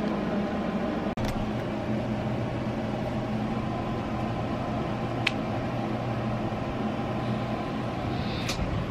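Steady mechanical room hum with hiss, like a running fan, with a brief dropout about a second in and a single faint click near the middle.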